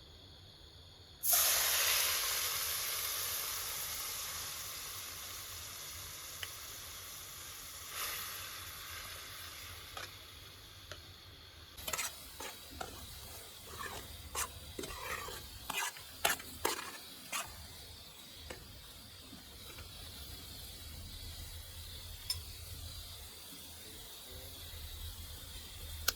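Food hitting hot oil in a pan sizzles, starting suddenly about a second in and slowly fading before it cuts off abruptly near the middle. After that comes a run of light clicks and knocks.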